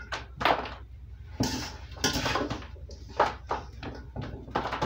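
A metal spoon scraping and knocking in a stainless steel mixing bowl while scooping a wet meat filling into foil baking pans. It comes as a string of short, irregular clatters and scrapes over a steady low hum.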